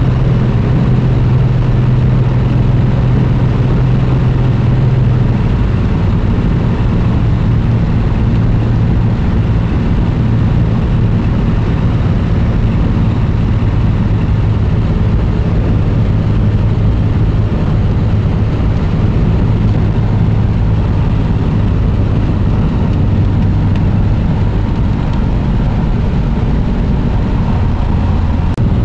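Single-engine light plane's piston engine and propeller droning steadily, heard inside the cockpit on final approach to landing; the engine note drops slightly about five seconds in.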